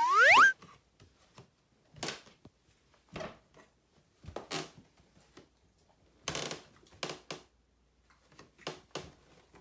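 A rising whistle sound effect opens, sliding upward for about half a second and loudest of all. After it come scattered soft rustles and clicks, roughly a dozen short ones spread out, from a beagle and a golden-retriever-type dog shifting and stepping on a floor mat and wooden floor.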